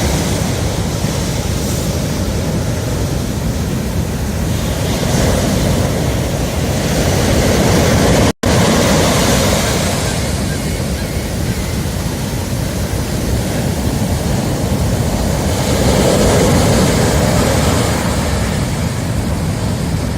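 Ocean surf roaring on a sandy beach: a continuous rushing wash that swells louder as waves break, twice over. The sound cuts out for an instant about eight seconds in.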